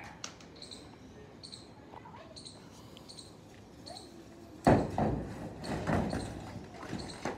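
Two cats fighting on a corrugated metal roof: after a quiet stretch, a sudden loud thump about two-thirds in, then a short flurry of scrabbling and bumping on the sheeting. A faint high chirp repeats about twice a second before it.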